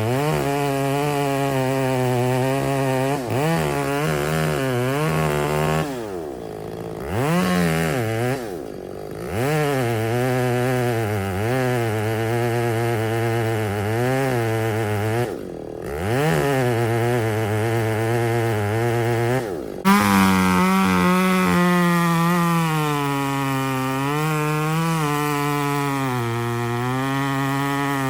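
Two-stroke chainsaw cutting into a large cedar trunk. It runs at full throttle and eases off several times, with a sharp knock about twenty seconds in, after which it runs at a steadier pitch.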